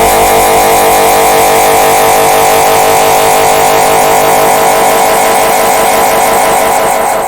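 The red bird laughing meme sound effect stacked on top of itself countless times, merging into one loud, dense, steady buzzing drone that begins to fade out near the end.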